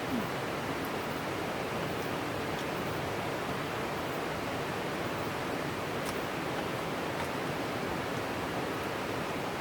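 Steady rushing of a mountain valley river flowing nearby.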